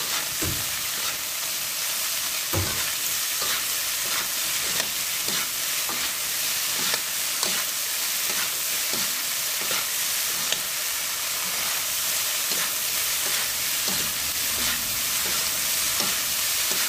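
Jicama and carrot filling sizzling as it is stir-fried in a hot pan, with stirring strokes clicking against the pan about twice a second.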